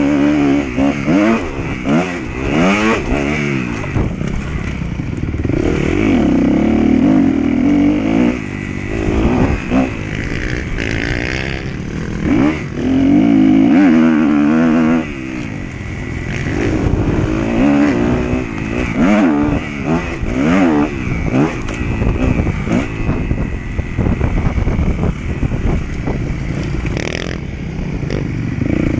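Motocross dirt bike engine heard on board, revving up and dropping again and again as the rider accelerates, shifts and rolls off around the track. The revs are held high for a couple of seconds near the middle.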